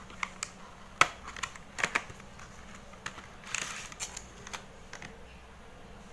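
A small package being handled and opened by hand: a scatter of sharp clicks and taps, the loudest about a second in, with a brief rustle about halfway through.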